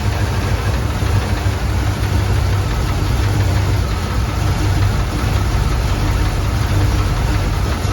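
Chevrolet 283 small-block V8 with throttle-body fuel injection idling steadily.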